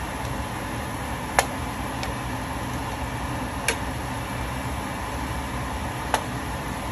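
Stir-frying vegetables being turned in a skillet with a plastic spoon that knocks sharply against the pan three times, a couple of seconds apart, over a steady hiss.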